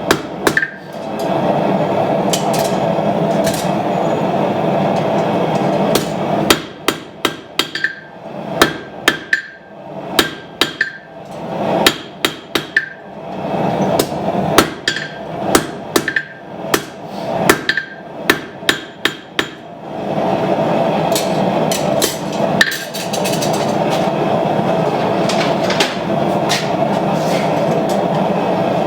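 A hand hammer striking hot steel on an anvil in quick runs of blows, each with a short metallic ring, as a puukko knife blade is forged. For the first six seconds and again for the last nine, the steady rush of the running forge is the main sound, with only a few strikes.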